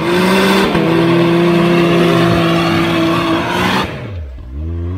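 Can-Am Maverick X3 UTV engine revved hard and held at a steady high pitch for about three and a half seconds under a loud rushing noise, then dropping back and rising briefly again near the end.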